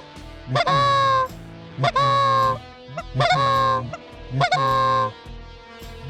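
Canada goose honks: four loud two-part honks, each a short note leading into a longer held note that drops in pitch at its end, about one a second.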